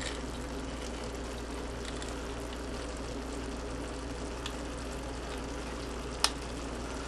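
Ground beef and vegetables sizzling steadily in a hot pan, with a faint tick about four and a half seconds in and one sharp metallic click near the end as a hand can opener cuts into the bottom of a tomato paste can.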